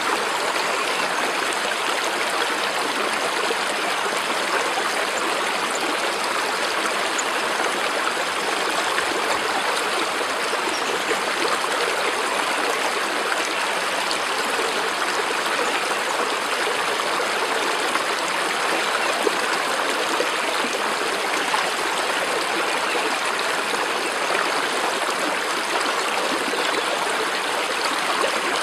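Flowing stream: a steady, even rush of running water that does not change.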